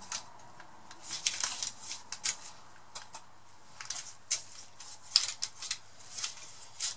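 Pastry brush making short, irregular scratchy strokes as egg wash is brushed along a pastry-wrapped sausage roll.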